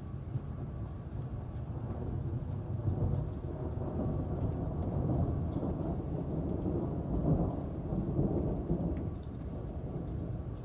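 A long roll of thunder rumbling over steady rain: it builds, is loudest a little past the middle, and eases off near the end.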